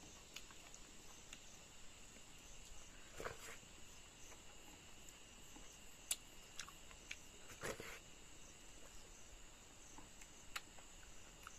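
Quiet eating by hand: sparse soft clicks and smacks from fingers working rice on a plate and from chewing, with two fuller smacks about three and eight seconds in. A faint steady high insect drone runs underneath.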